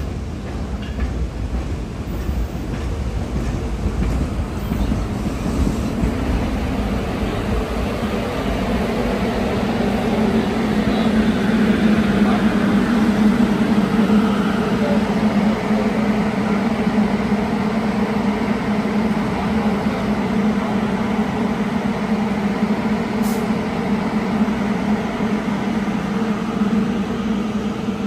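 Staten Island Railway subway train rolling slowly into the station and coming to a stop, a low rumble at first, then a steady drone from the standing train that swells about ten seconds in and holds.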